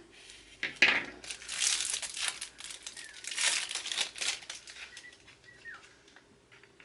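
Plastic wrapping around makeup brushes crinkling as they are handled, in irregular crackly bursts that die away near the end.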